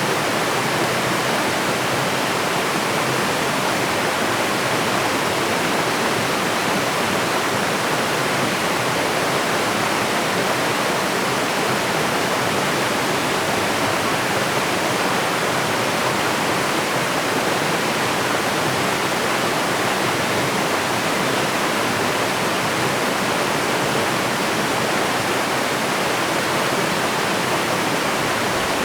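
Waterfall: water pouring steadily over rock, an even rushing noise with no change.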